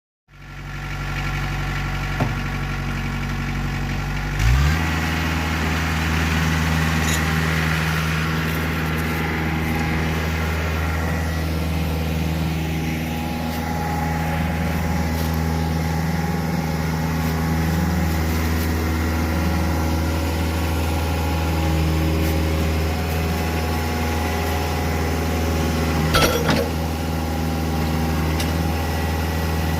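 Sawmill engine running steadily, its speed stepping up about four and a half seconds in. There are a couple of brief knocks, one near the start and one near the end.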